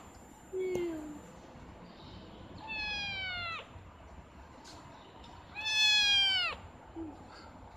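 Young kitten meowing twice, each call about a second long and falling in pitch, the second louder. A brief lower-pitched sound comes just before, about half a second in.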